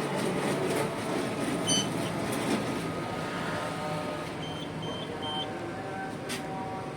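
Canon imageRUNNER 5020/5000 photocopier running with a steady mechanical whir and scattered clicks. One short beep comes about two seconds in, and three short beeps follow near the middle.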